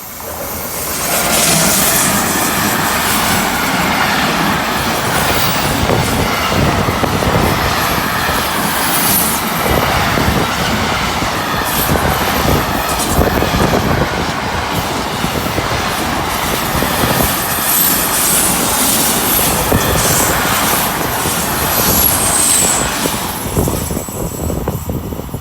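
Freight train carrying truck semi-trailers passing close at speed, with loud continuous rushing and rapid clattering from its wheels. The wind it drags along buffets the microphone. The noise builds up about a second in and eases off near the end.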